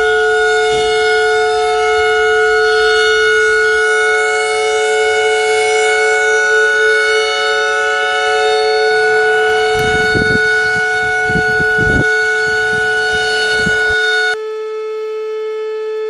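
NOAA Weather Radio warning alarm tone from a weather radio receiver, a steady, loud tone with many overtones. A few low knocks come near the end, and shortly before the end the tone drops in level and changes.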